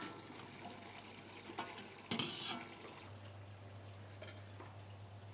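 Soft kitchen sounds of a utensil clinking and scraping in a pot of soup as it is cooked, with the loudest clatter about two seconds in. A low steady hum comes in about three seconds in.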